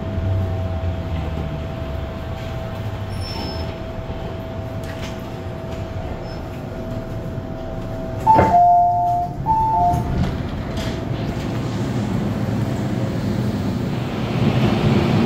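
MTR M-Train door chime: a sharp knock, then loud alternating high-low beeps twice, about eight seconds in, over the steady hum of the train's equipment standing at a platform. Noise builds near the end.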